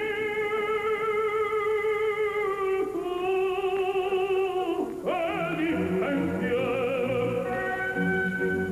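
Operatic singing with a strong vibrato, holding long high notes over orchestral accompaniment; about five seconds in the voice swoops and the accompaniment comes forward beneath a new held note.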